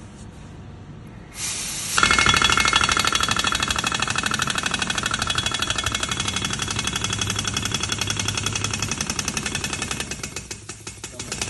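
Pneumatic air-hammer injector puller hammering rapidly on a seized diesel injector, working it loose. A short hiss starts about a second in, then the hammering starts and runs on at a rapid rate, slowing into separate blows near the end.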